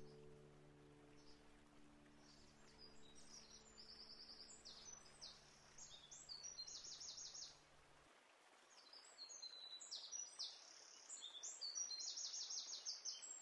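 Faint songbirds singing short, high, trilled phrases over and over, growing busier toward the end. Soft held music notes fade out in the first few seconds.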